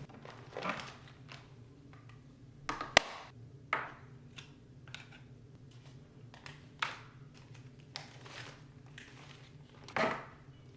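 Objects being handled and set down during order packing, heard as scattered light knocks, clicks and rustles. There is a sharp click about three seconds in and a louder knock about ten seconds in.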